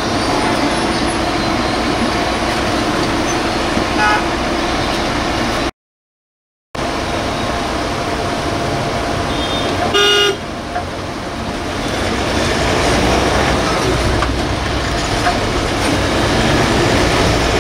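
Busy city traffic heard from inside a bus at a signal and pulling away: a steady engine and road noise that grows heavier as the bus moves off, with a short vehicle-horn toot about four seconds in and a louder, brief horn honk about ten seconds in. The sound cuts out completely for about a second near the middle.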